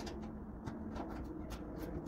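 Scattered light clicks and taps, about five in two seconds, over a low steady hum: small grill parts and hardware being handled during assembly.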